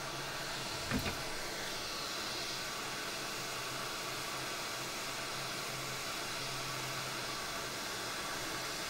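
ATTEN ST-862D hot air rework station blowing hot air through its nozzle onto a chip: a steady hiss of air with a low hum under it, set to 400 degrees and 50% airflow to melt the solder. A brief knock sounds about a second in.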